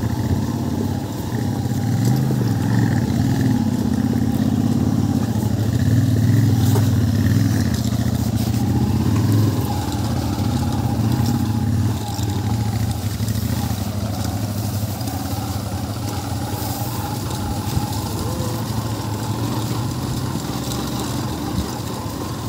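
Motorcycle engine running steadily while riding, growing louder a couple of seconds in and easing back a little about halfway through.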